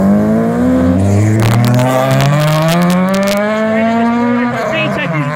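Car engine accelerating hard away, its pitch climbing steadily through one long pull for about four and a half seconds, then dropping at a gearchange near the end.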